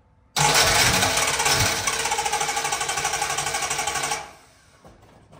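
The 1968 Dodge Dart's starter cranking the engine in a fast, even rhythm for about four seconds without it catching. It starts suddenly and cuts off.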